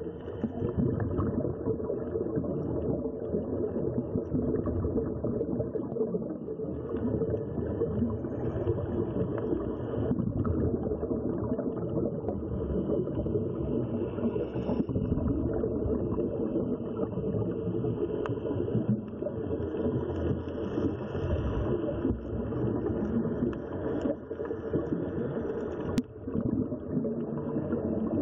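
Steady, muffled underwater rumble, the ambient noise picked up by a camera underwater on a dive.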